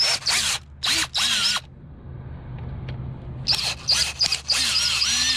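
Power drill run in a series of short trigger bursts, its motor whining up in pitch at each pull, with a pause of about two seconds in the middle: the bit is boring out the rivets that hold the mounting bracket on an old power window lift motor.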